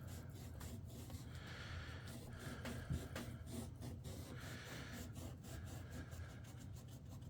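Damp towel rubbing wet paper off an image transfer on thin plywood, in repeated short strokes over a faint steady hum, with a light knock about three seconds in.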